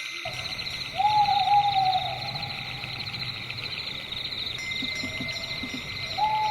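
Night forest ambience: crickets chirping in a steady, fast pulse, with a long owl hoot about a second in and another starting near the end.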